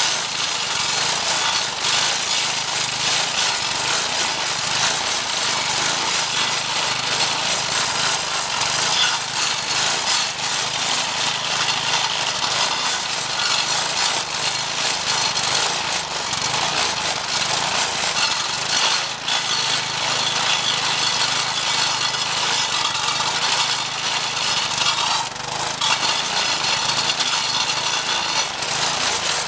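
Converted edger stump grinder: a Briggs & Stratton 4.5 hp vertical-shaft engine runs under load while its 10-inch carbide-tipped saw blade grinds into a hard mulberry stump. The grinding is steady and loud, with a couple of short dips.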